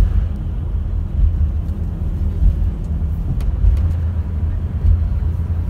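Inside a moving coach's cabin: a steady low rumble of engine and tyre noise at cruising speed, with a few faint clicks midway.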